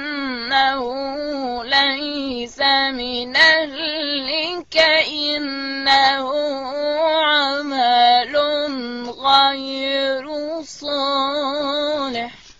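A boy's voice reciting the Quran in the melodic, drawn-out style of tajwid. Long held notes carry ornamented turns in pitch, with short breaks for breath, and the voice stops just before the end.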